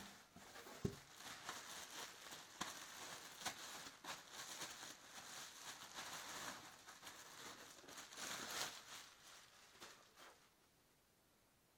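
Clear plastic bag crinkling and rustling as it is handled and pulled off a large subwoofer driver, with one soft thump about a second in. The rustling stops about ten seconds in.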